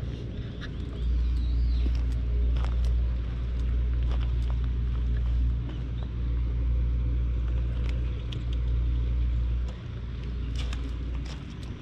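Wind buffeting an action camera's microphone outdoors: a steady low rumble that eases briefly about a second in and again near the end, with scattered light clicks and crunches over it that are thickest near the end.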